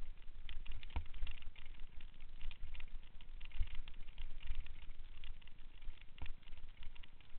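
Bicycle rattling and clattering fast over a bumpy dirt trail, with a gusty low rumble, and two harder knocks about a second in and near the end.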